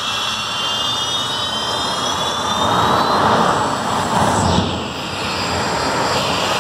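Jet dragster's turbojet engine running as the car moves along the track: a steady, loud roar with a high whine over it, swelling about halfway through and dipping briefly after.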